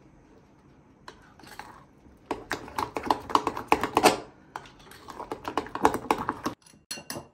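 Metal spoon stirring a thick curd-cheese mixture in a glass bowl, clicking and scraping rapidly against the glass. It starts about two seconds in, breaks briefly around the middle, and ends with a few separate taps.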